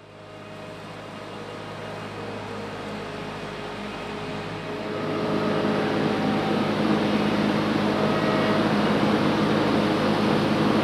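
Bergmann Roll-Packer RPM 7700 mobile waste compactor running, a steady machine hum with a few held higher tones that grows louder over the first six seconds, then holds.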